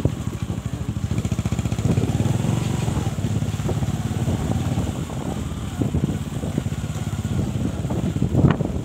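Small motorcycle engine running at low speed with a steady rapid putter as the bike rides along a rough lane. A short louder burst comes near the end.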